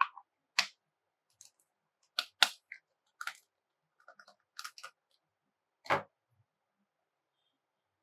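Small plastic toy pieces being handled and set down: a scattered series of short clicks and taps with silence between them, the loudest about two and a half seconds and six seconds in.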